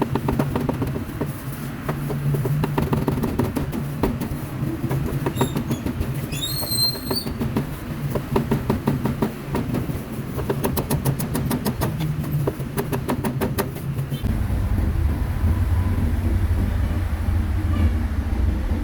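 Rapid sharp knocks of a cleaver chopping meat on a board, in quick runs, over street noise. A short high tone sounds about six seconds in, and a low engine rumble grows louder from about fourteen seconds in.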